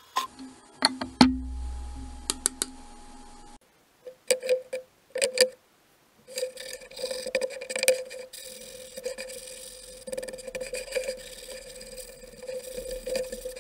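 A few sharp clicks and knocks of wood on the workbench, then from about halfway a sanding block rubbing back and forth over the painted wooden strips, a continuous dry scraping rub.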